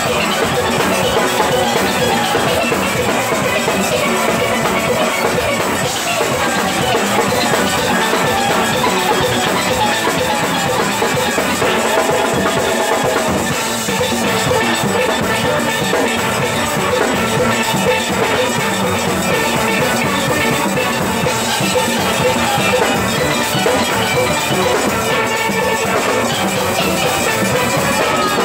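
A steel band playing live: many steelpans struck with rubber-tipped sticks over a drum kit, continuous and loud.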